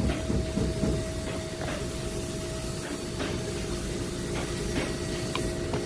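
Steady hiss and two-tone hum in the background, with a few faint clicks of the plastic inside door handle assembly being handled.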